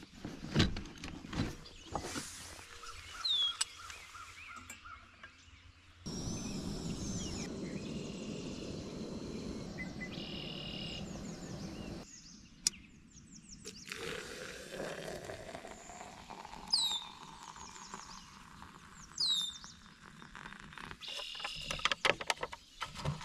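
Handling of a camp stove and metal cookware: clicks and light knocks, and a canister stove's burner hissing steadily for about six seconds. A bird chirps several times, each a short falling note.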